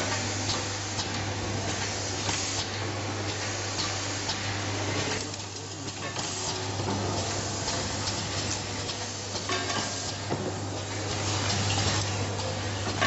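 Automatic screw-driving machine running with a steady low hum, under a busy, irregular clatter of small clicks and rattles from plastic electrical boxes being handled in a metal bin and set into the machine's fixtures.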